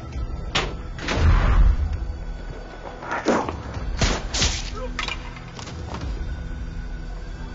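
Action-film gunfight sound effects: a string of sharp bangs and thuds, about eight, with a heavy low boom about a second in, over music.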